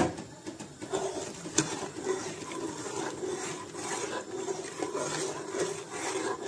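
Metal spoon stirring and scraping around a metal pot of broth just thickened with a flour slurry, with a few light clinks of the spoon against the pot.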